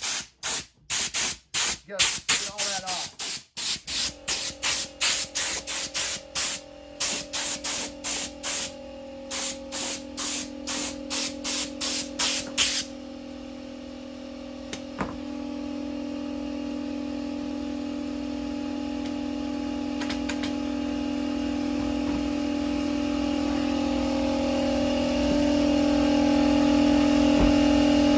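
Rapid short blasts of compressed air from a handheld blow gun, clearing wood chips off the work table, stopping about 13 seconds in. From about 4 seconds in, an air compressor starts and runs with a steady hum that grows louder.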